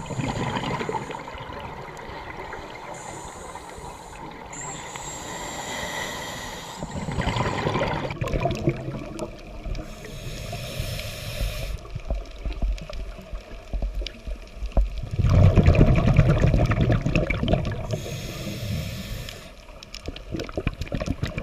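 Underwater sound picked up by a diving camera: muffled rushing and bubbling water, with a louder, lower rumbling stretch about two-thirds of the way through.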